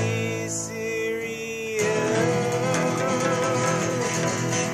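Acoustic guitar and acoustic bass guitar playing together, with one long held note carrying through. A fresh strum comes a little under two seconds in, after which the held note wavers.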